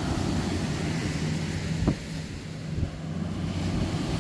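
Wind buffeting the microphone over surf on a beach, a steady low rumble, with a sharp knock about two seconds in.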